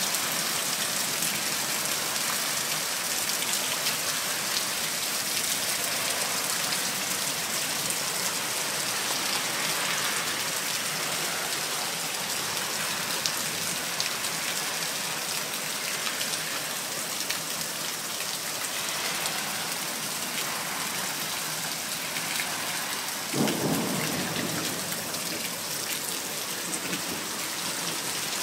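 Steady heavy rain falling and splashing on wet ground and puddles, with runoff spilling off a roof edge that has no gutter. A brief low rumble comes in near the end.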